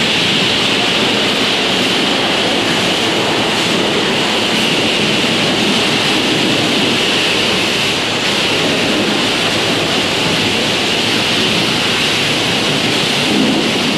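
Pressure-washer spray hitting a semi truck, a loud, steady hiss of high-pressure water.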